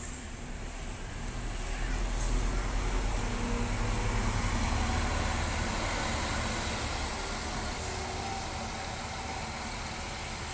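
Diesel engine of a Scania double-decker coach driving past at low speed. Its low rumble swells to its loudest a couple of seconds in, then slowly fades as the bus moves away.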